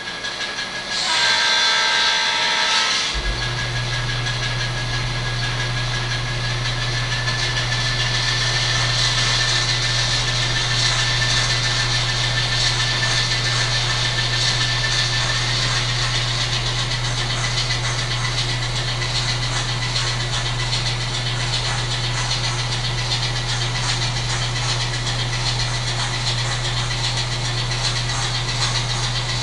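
Sound decoder of an N-scale Atlas ALCO S-2 model diesel locomotive playing through its small onboard speaker. A horn blast about two seconds long comes first, then a steady low diesel engine hum with a constant hiss over it.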